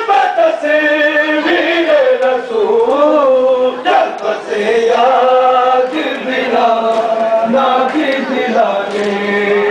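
Men chanting a Muharram nauha, a Shia mourning elegy, in long held notes that glide up and down.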